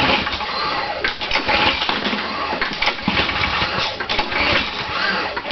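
Toro lawn mower engine firing and running unevenly. The owner suspects a bad spark plug.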